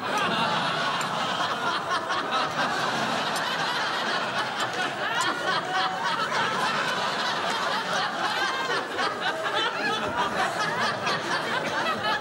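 A studio audience laughing, many overlapping voices keeping up a continuous wave of laughter.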